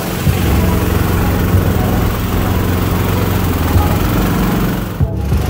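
Small air-cooled single-cylinder gas engine driving a mud motor, running steadily with a brief break about five seconds in.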